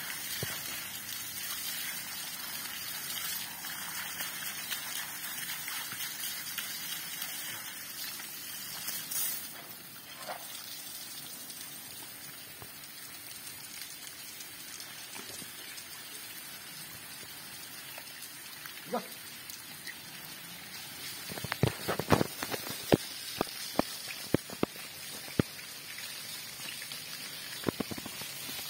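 Hose water spraying over an Asian elephant, a steady hiss and splatter of spray on its wet skin and the muddy, leaf-strewn ground. About three-quarters of the way through comes a run of sharp slaps and knocks, with two more near the end.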